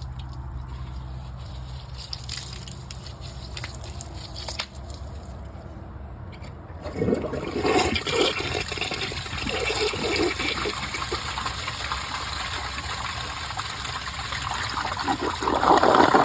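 1981 Briggs Abington toilet flushing, starting about seven seconds in. Water rushes into the bowl with surging gurgles, and the loudest gurgle comes near the end as it siphons down.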